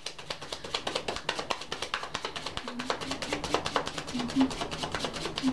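Background music with short low notes coming in a little under halfway through, over a run of quick, irregular clicks from a tarot deck being shuffled by hand.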